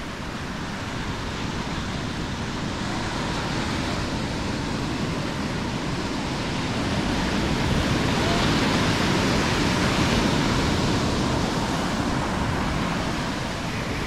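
Surf breaking and washing up a sandy beach, a steady rush that swells to its loudest a little past halfway and then eases.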